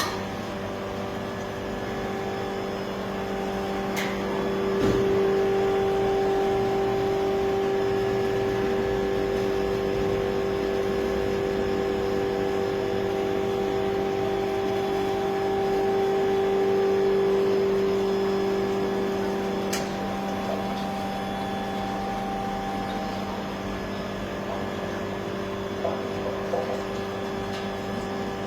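Automatic beer keg washer running its wash cycle: a steady machine hum that grows louder about five seconds in and eases back down about twenty seconds in, with a few sharp clicks.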